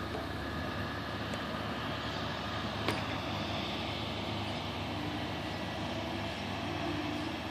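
Steady rumble of a moving vehicle, with a single sharp click about three seconds in.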